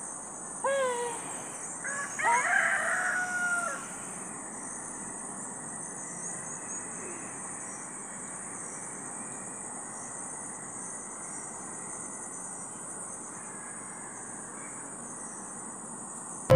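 A rooster crowing within the first four seconds, with a steady high hiss behind it that carries on after the crow ends.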